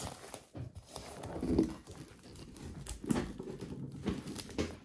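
Light kitchen handling noises: a few scattered soft knocks and short rustles as a covered bowl of dough is handled.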